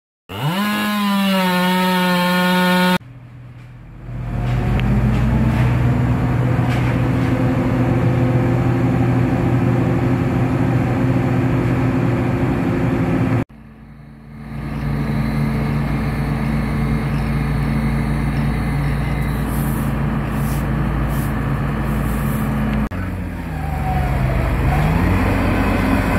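A Stihl chainsaw revs up quickly to full throttle and holds there for a couple of seconds. After a cut comes the steady drone of heavy machinery engines: a crane truck holding the cut trunk, and near the end a tracked mini skid steer's engine, which dips briefly in pitch and comes back up.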